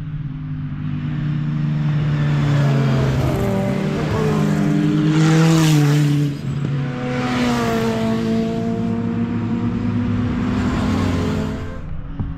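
Historic one-litre Formula 3 racing cars' engines running at high revs round the circuit, the notes rising and falling as they accelerate and change gear. The loudest note drops abruptly about six seconds in, then builds again and fades near the end.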